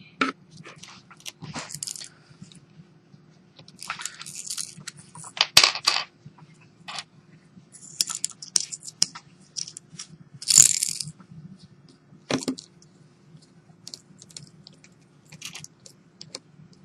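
Irregular small clicks, taps and scrapes of Samsung Galaxy S3 phone parts being handled and fitted back together, over a steady low hum.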